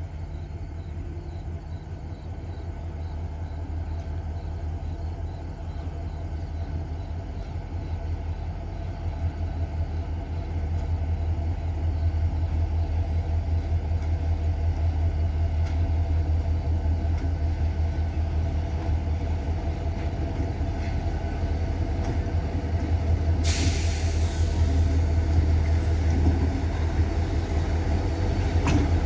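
CN diesel locomotive 4790 approaching, its engine's low drone growing steadily louder. About 24 seconds in a high hiss sets in and stays, and a few sharp clicks come near the end as it draws close.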